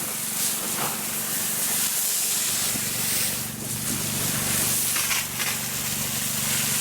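Fire hose spraying water in a steady hiss, with a steady low hum underneath.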